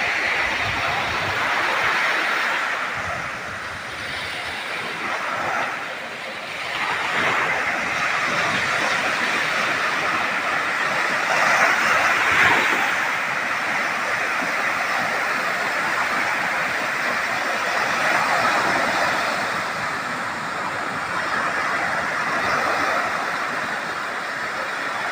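Ocean surf breaking and washing up a sandy beach: a steady rushing that swells and eases, dipping a few seconds in and loudest about twelve seconds in.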